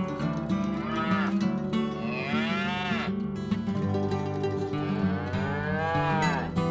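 Cattle mooing three times, each call rising and then falling in pitch, the last one the longest.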